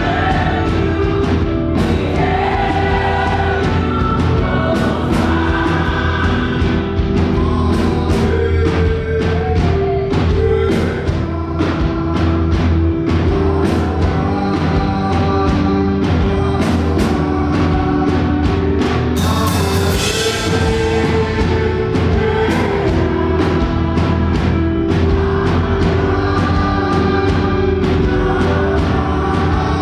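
Live up-tempo gospel worship music: a band with drums keeping a steady beat under group singing, with a cymbal swell about twenty seconds in.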